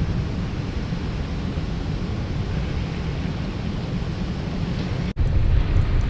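Strong wind buffeting a GoPro's microphone: a steady low rumbling noise. The audio cuts out for an instant about five seconds in, the GoPro dropping its sound in the heavy wind, and comes back a little louder.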